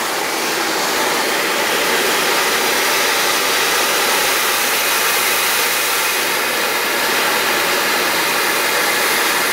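Liquid-oxygen tanker truck venting cold oxygen gas: a loud, steady hiss of gas rushing out through its valves and pipework, which are frosted over from the liquid oxygen.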